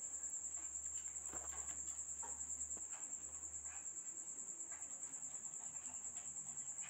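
Faint, steady high-pitched insect trill, pulsing rapidly and evenly, with a few faint ticks underneath.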